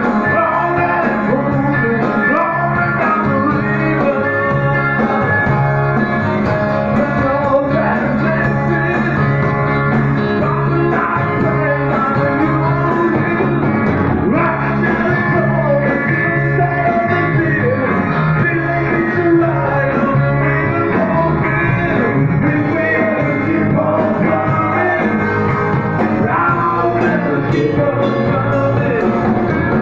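Live rock band playing loud and steady: electric guitars and drums, with a singer.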